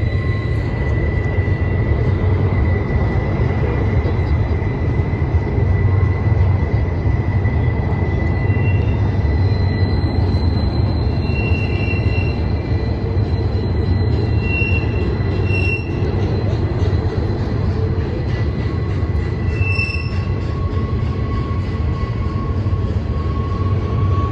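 Double-stack intermodal freight train rolling past: a steady low rumble of wheels on rail, with thin high-pitched wheel squeals coming and going.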